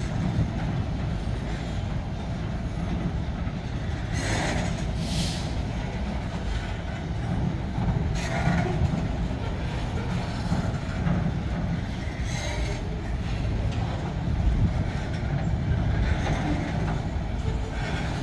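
Freight wagons of a bauxite train rolling past close by: a steady low rumble of wheels on rail, with a few brief high-pitched wheel squeals about four, eight and twelve seconds in.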